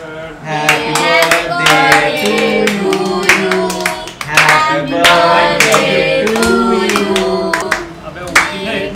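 A song being sung over music, with hands clapping.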